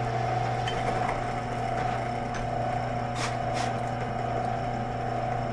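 Electric power tool motor running at a steady, unchanging speed while working out the worn pin of a cowboy spur's rowel, with two brief sharp ticks a little past the middle.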